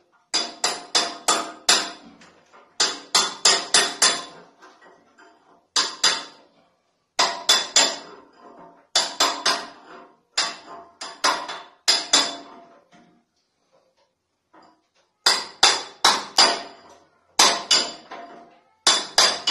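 Hammer blows on metal in quick bursts of two to six strikes, each with a short metallic ring, the bursts a second or two apart with one longer pause about two-thirds through.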